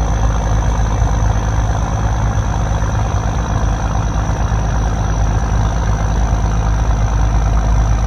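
A motor engine running steadily with an even low rumble, and a thin steady high-pitched tone over it.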